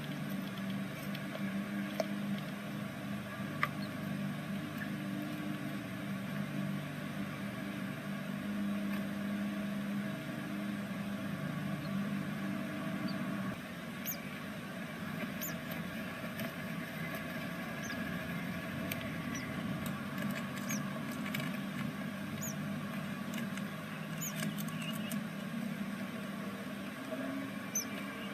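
Great tit nestlings in the nest box giving short, thin, high squeaks, scattered and more frequent in the second half, with a few faint ticks, over a steady low hum.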